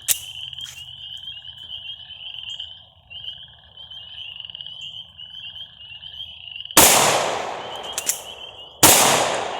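Two Glock pistol shots about two seconds apart, each with a long echoing tail, over a steady pulsing chorus of frogs. This is a one-round reload drill: the first shot empties the single-round magazine and locks the slide open, the magazine is swapped, and the second shot follows.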